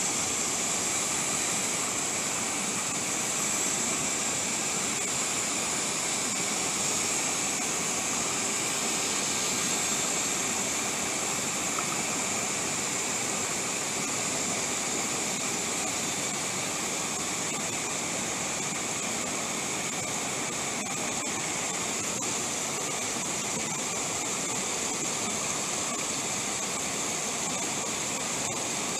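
Mountain stream rushing over rocks and small cascades, a steady unbroken hiss of water.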